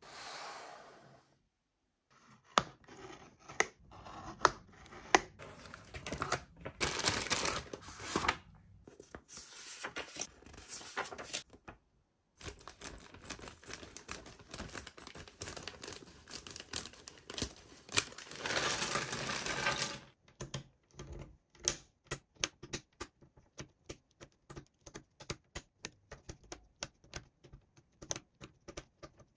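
Toy packaging being handled and opened: rustling and tearing with sharp knocks, then a run of quick, even clicks from about two-thirds of the way in.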